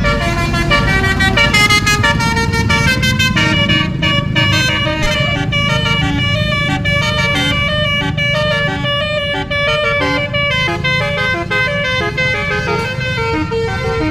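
Bus 'basuri' telolet horn, a multi-note air horn, playing a tune of quick stepped notes without a break, over the low rumble of the engine and traffic.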